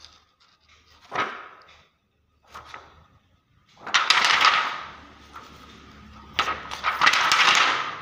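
A stiff sheet of 125-micron clear polyester film being handled and flexed by a gloved hand, crackling. There are short crackles about a second in and near three seconds, then two longer, louder stretches of crinkling around four seconds and in the last second and a half.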